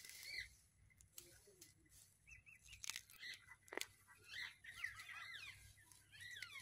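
Small birds chirping and twittering faintly in quick calls that slide up and down, with a few sharp clicks among them.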